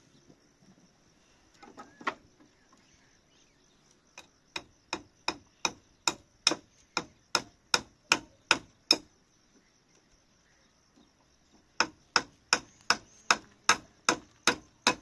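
Hammer blows in steady runs of about two and a half strokes a second, typical of nailing during repair of a hut's canopy. A run of about a dozen strokes is followed by a pause, then a second run starts near the end.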